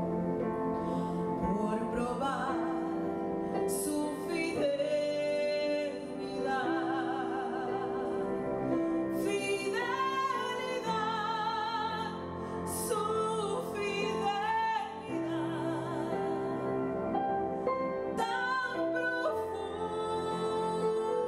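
Music: a solo voice singing in an operatic style with a wide vibrato, over sustained instrumental accompaniment.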